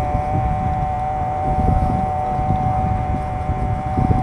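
A steady mid-pitched hum made of two close tones, over a low, uneven rumble of wind on the microphone.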